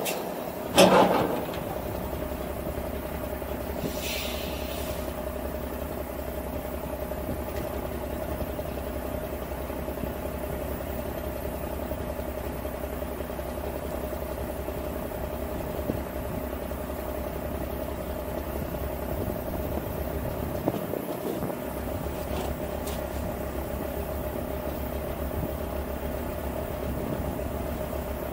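Straight-piped Cummins diesel of a Kenworth C500 winch truck idling steadily. A short burst of noise comes about a second in, and a faint hiss around four seconds.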